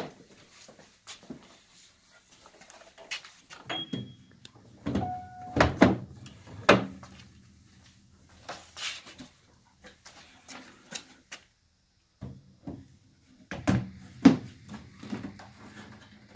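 Wooden casework of a Monington & Weston upright piano being handled: the keyboard lid closed and the front panels moved, giving an irregular series of knocks and clunks.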